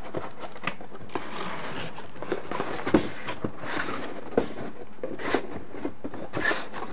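Handling noise from a cardboard box and a power cable: rustling with scattered light clicks and knocks, the sharpest about three seconds in and again a second or so later.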